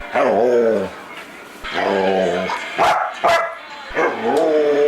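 A dog "talking": three drawn-out, howl-like calls that rise and fall in pitch, with a couple of short sharp sounds between the second and third.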